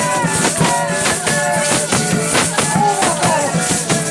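Brazilian folia group playing folk music: sustained instrumental notes over a steady beat of drum and tambourine strokes.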